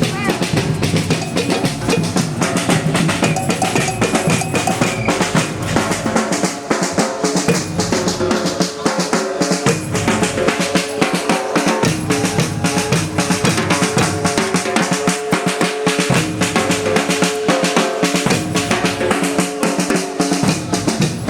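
Batucada percussion ensemble playing a rhythm on snare drums and bass drums. The bass drums drop out for short breaks several times while the snares keep going.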